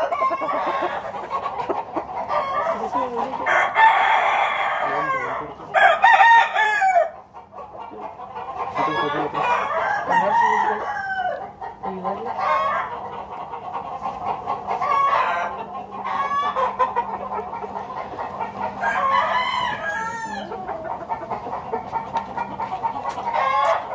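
Gamecocks crowing again and again, several crows overlapping, with clucking in between; the loudest crow comes about six seconds in.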